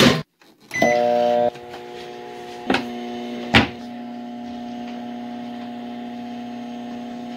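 Hamilton Beach microwave oven: a click, a short beep as it starts, then a steady electric hum as it runs, a little louder for the first half second. Two sharp clicks come a few seconds in.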